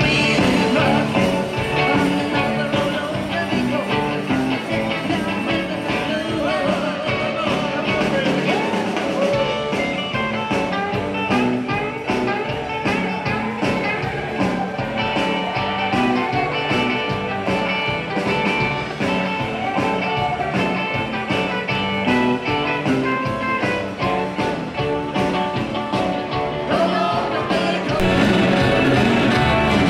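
Live band playing rock and roll with a singer and guitar, amplified over the hall's sound system, steady and loud.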